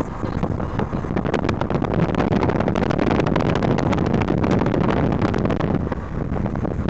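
Moving vehicle's engine and road noise, a steady rumble with many small knocks and rattles, as on a rough road, and wind on the microphone.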